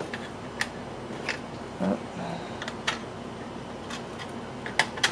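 Hard plastic parts of a 3D-printed printer case clicking and tapping as the lid is worked into place by hand: about six sharp, irregular clicks, the loudest near the end.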